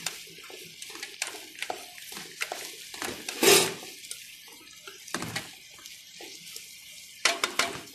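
Cooking utensil knocking and scraping in a pan of okra and garlic as it is stirred. A short, loud rush of hissing noise comes about three and a half seconds in, and a quick run of clatters near the end.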